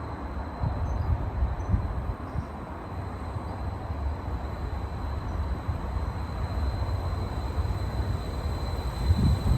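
A train running on the line through the station, heard as a steady low rumble.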